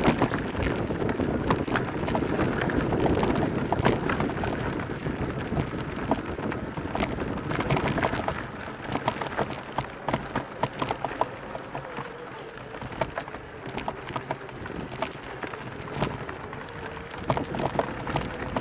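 Mountain bike riding over a rough dirt trail: tyres crunching over stones and roots with many small knocks and rattles, and wind on the microphone, easing off about halfway through when a faint steady whine comes in.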